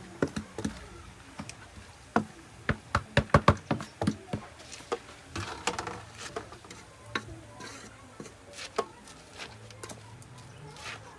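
A utensil knocking and scraping against a cooking pot as stewed cabbage is stirred: irregular sharp clicks, with a quick run of them a few seconds in, then sparser.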